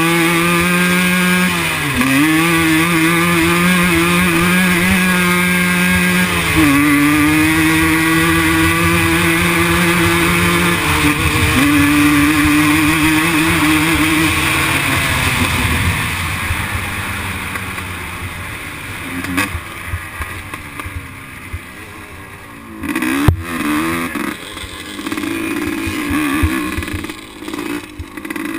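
Quad bike engine at full throttle, accelerating up through the gears: its note climbs and then drops sharply at three gear changes in the first eleven seconds. After about fifteen seconds the engine note fades into rougher noise, with a sharp knock and clattering from the bumps near the end.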